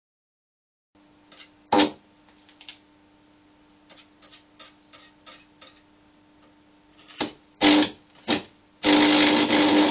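Homemade stick welder built from microwave oven transformers humming steadily, with scattered taps and short crackles as the electrode is struck against the work. Near the end the arc catches and burns with a loud, steady crackle over the louder hum.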